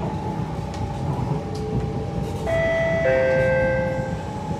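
Siemens C651 metro train running between stations, with a steady low rumble and a steady whine. About halfway in, a loud two-note signal sounds, a higher tone then a lower one, lasting about a second and a half.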